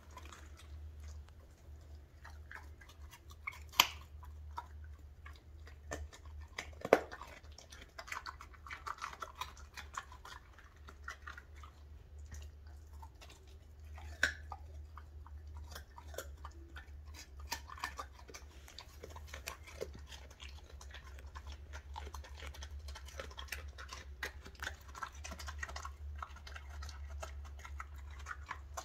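A greyhound-type dog chewing and crunching raw carrot pieces, a steady run of irregular wet crunches and clicks of teeth, with a few much louder sharp cracks about 4, 7 and 14 seconds in.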